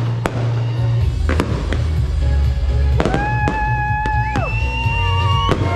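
Aerial firework shells bursting, about five sharp bangs over a few seconds, over music with a heavy steady bass; a held melodic note enters about three seconds in.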